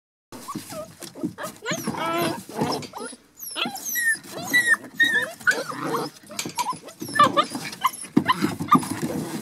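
Border Collie puppies, seven and a half weeks old, yipping and squealing in play: many short, high calls, several with a quick falling pitch, overlapping through the whole stretch.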